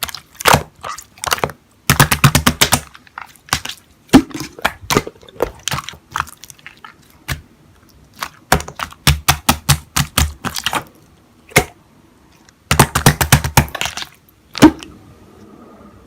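Slime being squished and pressed by hand, giving bursts of rapid crackling clicks and pops separated by short pauses, with one louder pop near the end.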